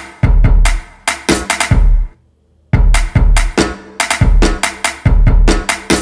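Modern R&B drum beat with deep kick drum thuds and sharp snare cracks. It stops about two seconds in, and after a short silence another beat of the same kind starts.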